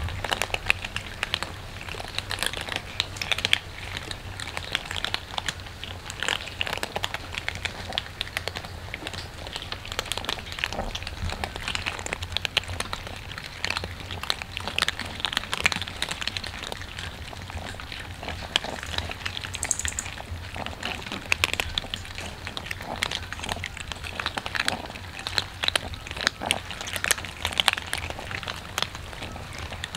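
Several cats eating dry kibble: a dense, irregular crackle of many small crunches and clicks.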